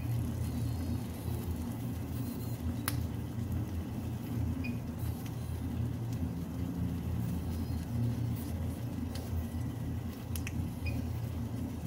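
Steady low hum of a glass-top cooktop heating a frying pan, with a few light clicks and three short, faint high tones.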